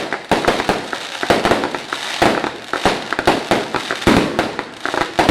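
Fireworks going off in a rapid, irregular volley of bangs and crackles, several a second.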